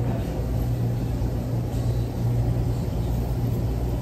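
Steady low hum and rumble of background machinery in a shop, even throughout with no distinct knocks or events.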